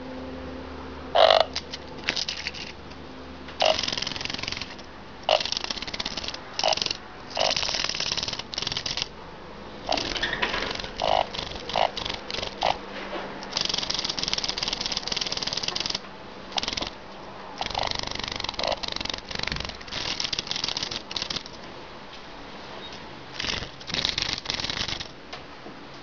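Emperor cicada (Pomponia imperatoria) calling: a series of high buzzing bursts, each from a fraction of a second to a couple of seconds long, separated by short gaps. Many bursts open with a brief lower note.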